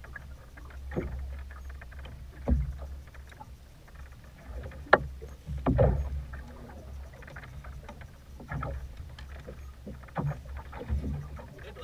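Choppy waves slapping against the hull of a small boat, giving irregular splashes and knocks, the loudest about halfway through, over a steady low rumble.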